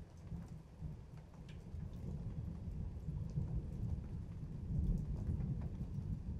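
Thunder rumbling low, building about two seconds in and loudest around five seconds, over rain with scattered drops ticking.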